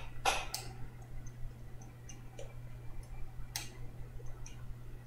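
A few soft, scattered clicks and taps over a steady low electrical hum, typical of a mouse and desk being handled.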